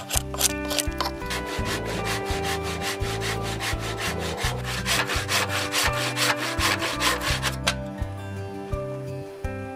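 Quick, regular scraping strokes of a hand tool working a peeled wooden pole, about four a second, stopping about eight seconds in. Soft guitar music plays underneath.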